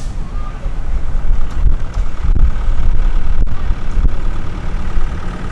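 Truck driving, its engine running with a steady low rumble, heard from the open back of the truck.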